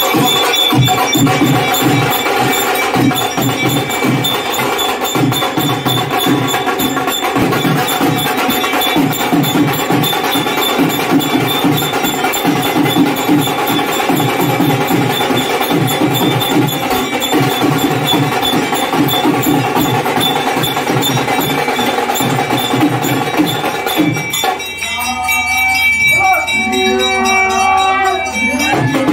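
Hindu temple aarti: bells ringing without a break over a fast, steady beat of drums and percussion, with voices singing. Near the end the bells and beat drop away, leaving singing over held notes.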